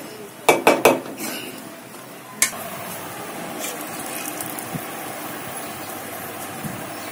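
A steel pot of boiling sugar syrup clinks sharply against the gas stove's metal grate three times, then once more. A steady hiss follows as the hot syrup is poured from the pot into a steel basin of water.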